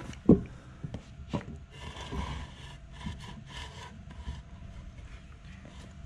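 Plastic HDPE mold holding a cast epoxy blank knocking and scraping against wooden beams as it is worked loose: one sharp knock about a third of a second in, a few lighter knocks, and rubbing scrapes between them.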